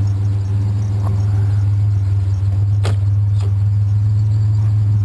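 Truck engine running steadily, a low, even hum with two faint clicks about three seconds in.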